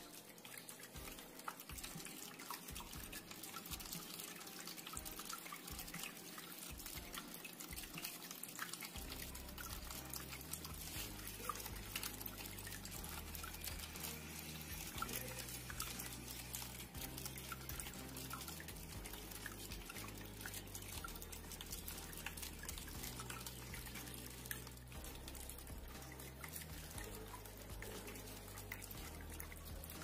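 Water splashing and dripping steadily in a small homemade cement tabletop waterfall fountain.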